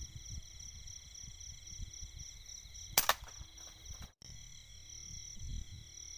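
Night insects chirping steadily in a pulsing chorus; about three seconds in, a single sharp double crack of an air gun shot.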